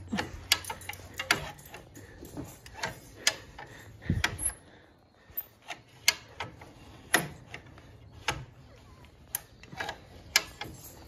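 Come-along ratchet clicking as its lever is pumped, a sharp click every half second to second with a short pause about halfway through, one duller thump about four seconds in. The come-along is winching a manure spreader's broken webbing chain back into line.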